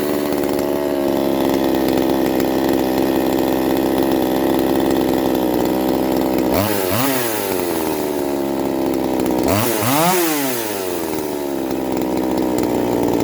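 Neo-Tec NH841 two-stroke petrol chainsaw running steadily at high speed, its pitch dipping and recovering twice, around seven and ten seconds in.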